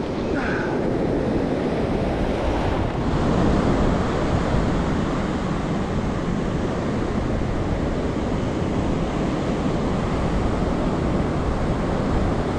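Ocean surf washing and breaking steadily, with wind blowing across the microphone.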